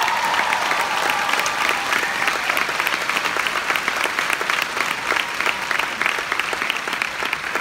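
Large audience applauding loudly, with sharp individual claps from close by.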